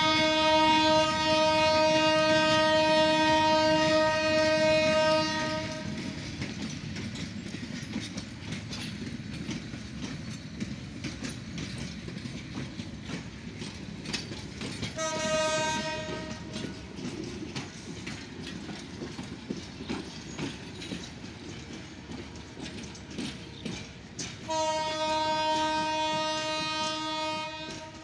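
Passenger train horn blowing three times: a long blast of about five seconds at the start, a short one about fifteen seconds in, and another of about three seconds near the end. Under it runs the steady clickety-clack of passing coach wheels on the track.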